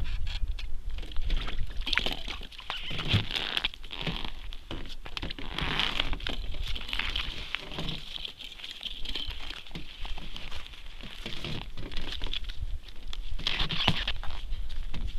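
Irregular crunching, crackling and rustling as an ice angler shifts on packed snow and ice beside the fishing hole and handles his rod and clothing, over a steady low rumble.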